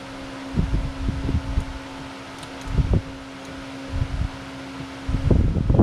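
Voxelab Aquila Pro 3D printer's cooling fans humming steadily while the heated bed warms up, with a few short low rumbles mixed in; the hum cuts off about five seconds in.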